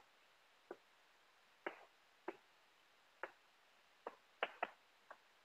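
Chalk tapping and scratching on a blackboard as words are written: faint, short clicks at irregular intervals, a little closer together near the end.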